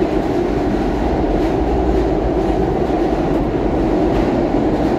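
SEPTA Market-Frankford Line subway train running through a tunnel: a steady, loud rumble of wheels on rail, heard from inside the car.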